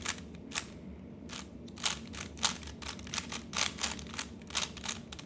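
Plastic 3x3 Rubik's Cube being turned by hand, its layers clicking in a run of quick, irregular clacks, sparse at first and then several a second.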